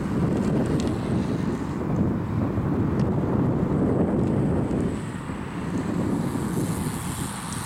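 Wind buffeting the microphone: a loud, gusty low rumble that swells and eases over a few seconds, with no steady tone in it.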